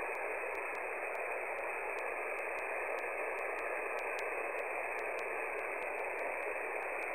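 Shortwave receiver static on the open 14.325 MHz sideband frequency: a steady hiss, cut off above the voice band, with a faint wavering tone in it. No station is answering the call.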